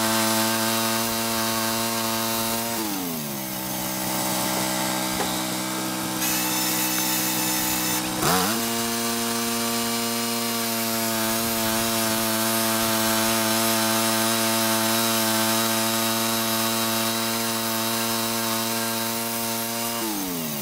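Vanguard gas engine of a Timber Grizz portable bandsaw mill running as its blade saws through a large log round, heard sped up. The engine's pitch sinks about three seconds in, climbs sharply back about eight seconds in, and sinks again near the end.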